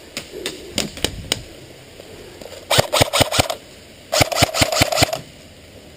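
Airsoft gun firing: a few single shots, then two quick full-auto bursts of about eight shots each.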